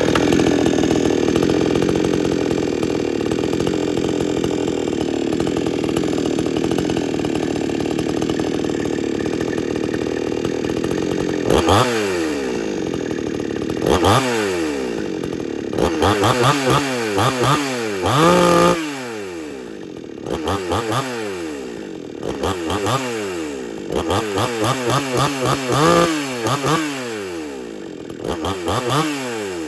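XtremepowerUS 6200 62cc two-stroke chainsaw running steadily at high speed for about eleven seconds, then revved up and let back down to a low idle over and over.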